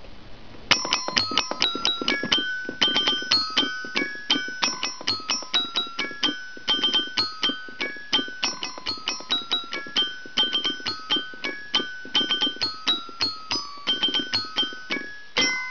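Toy xylophone piano played by hand: pressing its coloured keys strikes the metal bars, sounding a quick tune of ringing single notes that starts about a second in.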